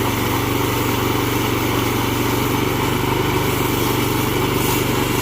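Portable band sawmill's gasoline engine running steadily.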